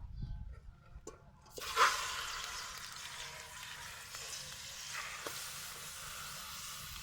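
Food sizzling in a hot pan: a hiss starts suddenly about a second and a half in and then keeps up steadily.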